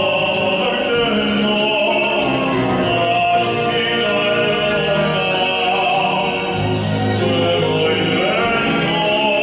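Operatic-style singing with orchestral accompaniment, steady and sustained, with long held notes.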